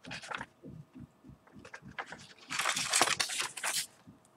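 Paper and plastic packaging rustling as it is handled. There is a short rustle at the start, then a louder crinkling rustle lasting about a second from halfway through.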